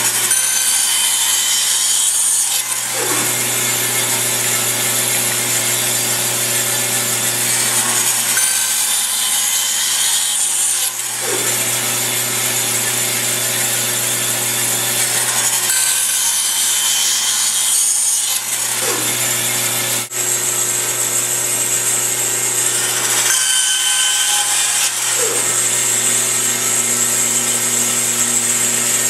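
Band saw running and cutting wood, with small pieces fed through the blade on a crosscut sled. The cutting goes in a repeating cycle about every seven to eight seconds, four times over.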